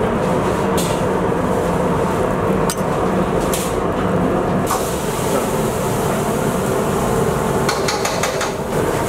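Steady loud rushing hum of a commercial kitchen's gas stove and extraction running. A few light clicks and taps come in the middle and again near the end.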